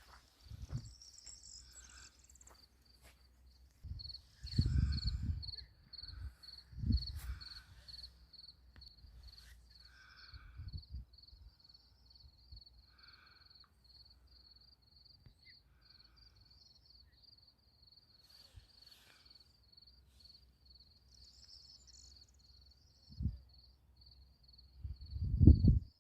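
An insect chirping steadily, a high note pulsed about two to three times a second, in open countryside. Several low rumbling thumps break in, the loudest about five seconds in and just before the end.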